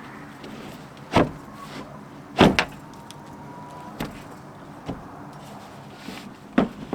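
About six sharp knocks at irregular intervals, two of them close together near the middle: work on a wooden chicken coop lid. A steady low hum runs underneath.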